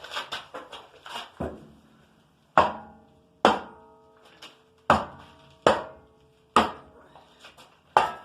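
Hammer blows on the metal of an old furnace, each strike ringing. A few lighter knocks come first, then six heavy strikes about a second apart.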